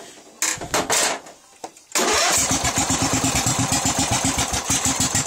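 Craftsman lawn tractor's 13.5 hp engine turning over in a short burst, then, from about two seconds in, running loud with a rapid, even beat. The owner says the engine is burning oil and won't hold its idle.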